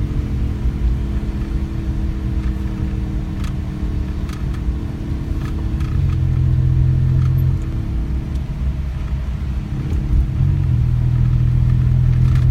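Low engine drone, like a car running. It steps up in pitch and loudness about six seconds in, falls back, and rises again near ten and a half seconds, with a few faint clicks over it.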